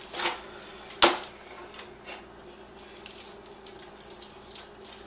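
Hand-twisted pepper mill grinding black pepper onto a raw beef rib roast: a run of irregular dry clicks and ticks, with one sharp knock about a second in.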